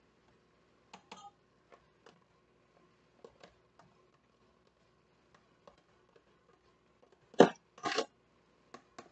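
Light scattered clicks and taps from a plastic food container being handled over stovetop pots, then two sharper knocks close together near the end, over a faint steady hum.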